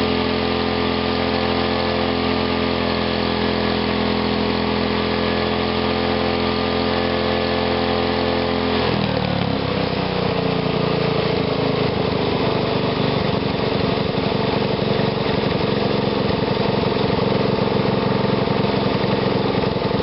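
Small gas engine running on a homemade GEET fuel processor holds steady high revs, then about nine seconds in the gas is cut back and its pitch falls over about a second to a slower idle with each firing pulse heard separately.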